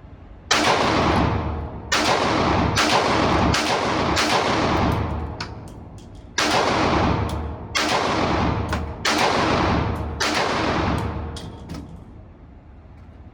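Semi-automatic shots from an AK-pattern pistol, about ten in two strings of five fired about a second apart, the second string starting about six seconds in. Each shot is loud and leaves a long echoing tail. A few faint sharp shots from elsewhere sound between them.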